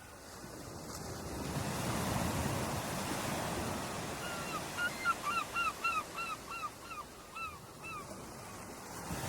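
Ocean surf: a wave swells up over the first couple of seconds and washes on steadily. From about halfway in, a bird gives a quick run of about a dozen short, arched calls, near three a second, thinning out toward the end.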